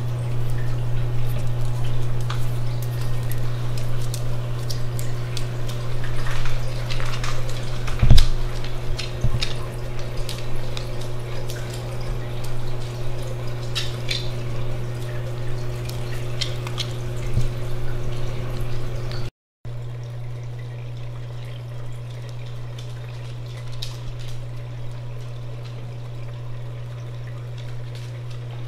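Reef aquarium's pump and water circulation: a steady low hum with trickling, dripping water. Scattered clicks and a sharp thump about eight seconds in; the sound drops out for a moment just past halfway and comes back quieter and steadier.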